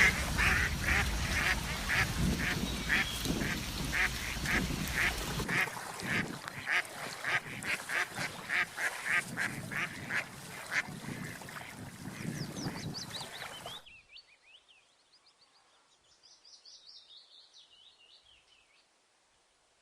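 Waterfowl calling over and over, loud, about two calls a second, until the calls cut off abruptly about two-thirds of the way through. Then come faint, quick, high chirps of a small bird, sliding down in pitch.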